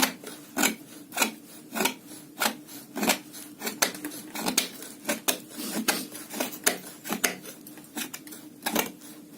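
Folding pocketknife blade carving a wooden stick in short, evenly repeated scraping shaves, about one and a half strokes a second.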